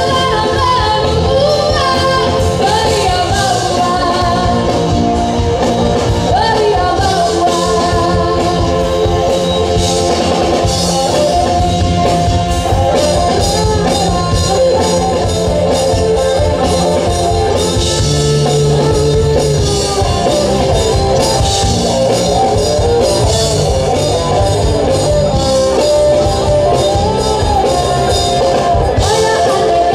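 Live rock band playing a song: a woman sings lead over electric guitar, bass guitar, keyboard and drums. The music is loud and continuous.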